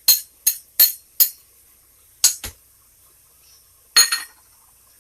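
A kitchen knife chopping ginger on a hard cutting board: sharp, clicky strikes, four quick chops in the first second and a bit, then three more spaced strikes.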